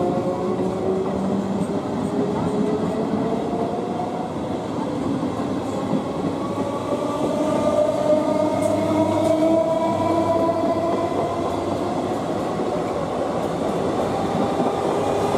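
Electric multiple unit (EMU) suburban train moving past, its traction motors whining in several tones that slowly rise in pitch as it gathers speed, over the steady noise of its wheels on the track.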